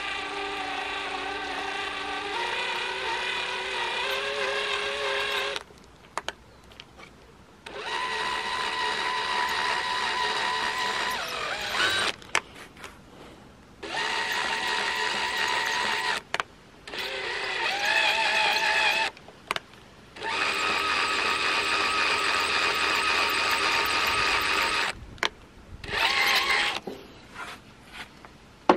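Cordless drill turning a screw extractor bit in a damaged screw head. It whines in about six runs of a few seconds each with short pauses, its pitch shifting as the speed changes, and the screw fails to unscrew.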